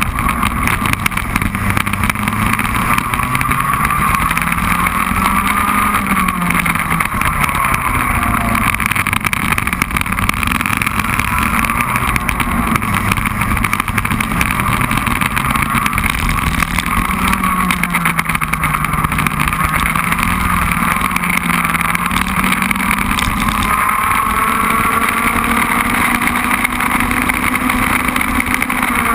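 Racing kart engine heard from on board at full race pace, its pitch repeatedly climbing and then dropping as it revs up along the straights and comes off the throttle for the corners, over a steady rush of noise.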